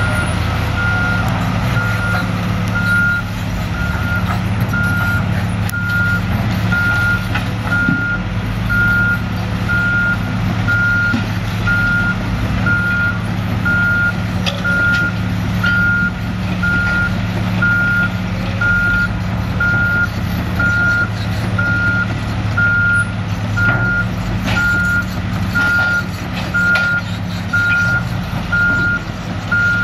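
Back-up alarm beeping steadily about once a second, over a diesel truck engine running at a steady speed.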